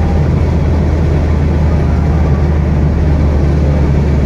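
Steady low rumble of a car being driven at speed, heard from inside the cabin: engine and road noise.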